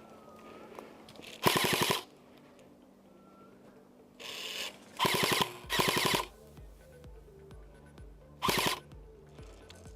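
Airsoft electric rifle firing five short full-auto bursts, each about half a second of rapid clicking shots. A quieter, low-pulsing music track comes in about halfway through.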